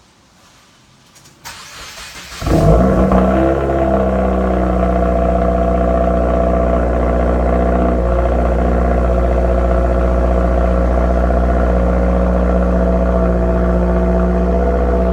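Cold start of a 2017 Subaru WRX's turbocharged 2.0-litre flat-four through a Cobb catted J-pipe, resonated mid-pipe and muffler delete. The starter cranks briefly about a second and a half in, the engine catches about a second later with a sudden loud burst, then settles into a steady, loud high idle.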